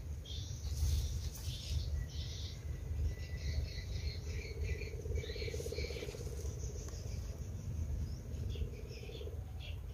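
Outdoor ambience of insects chirping and birds calling in short, scattered patches over a low rumble. A steady buzz joins about halfway through.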